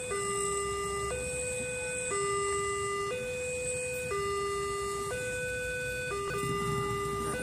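Railway level-crossing warning alarm sounding: an electronic two-tone signal that alternates between a lower and a higher tone about once a second. It signals that a train is approaching the crossing. A low rumble grows underneath it near the end.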